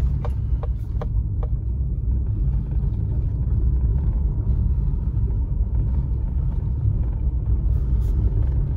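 Car driving slowly over an unpaved dirt road, heard from inside the cabin: a steady low rumble of engine and tyres, with a few sharp clicks in the first second and a half.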